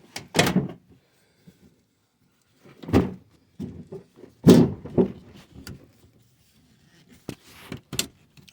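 Small loose objects being handled and set down, a few separate knocks and clatters with short pauses between them.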